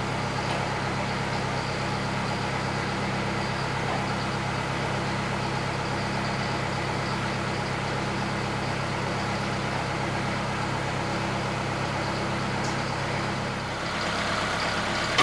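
Tractor engine idling steadily, a low even hum, while its loader is used to lift a heavy sawmill head off a trailer. Shortly before the end the hum changes and its deepest part drops away.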